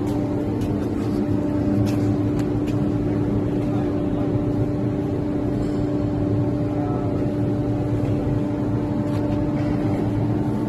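CNC optimizing cross-cut saw running without cutting: a steady machine hum with a constant tone, and a few faint clicks in the first three seconds.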